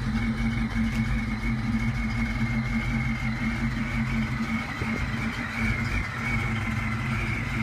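Vortech-supercharged 5.0 L V8 of a 1992 Ford Mustang LX running at a steady idle, with a steady high whine above the engine note.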